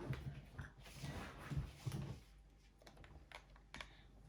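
Irregular light clicks and taps of small objects being handled, busiest in the first two seconds and then thinning to a few scattered clicks.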